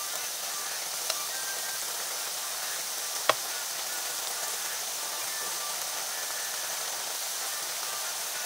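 Battered potato fries deep-frying in hot oil: a steady sizzling hiss with small crackles, and one sharp pop about three seconds in.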